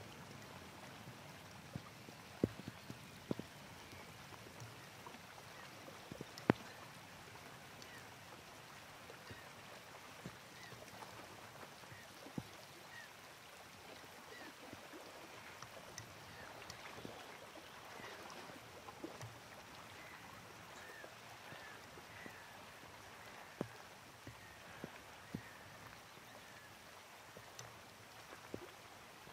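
Faint outdoor storm ambience by the sea: a steady soft wash of water, with scattered sharp raindrop ticks and a few faint short chirps through the middle.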